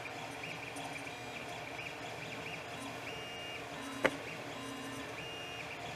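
Creality CR-10S 300 3D printer running a print: its stepper motors whine in short segments whose pitch steps and glides as the print head changes speed and direction. A single sharp click about four seconds in.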